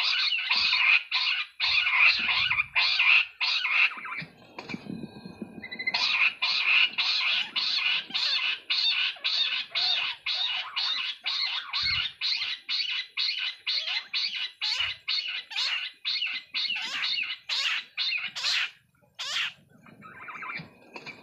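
Bush quail calling: a fast run of short, harsh notes, about two to three a second. It breaks off for a couple of seconds about four seconds in, then goes on and ends with a few higher, rising notes near the end.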